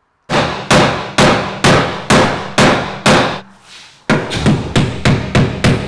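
Hammer striking the crash-damaged sheet-metal quarter panel of a Porsche 911 GT3 RS, beating out a dent. Loud metallic blows about two a second, each with a short ring, then after a brief pause about three seconds in, quicker blows about three a second.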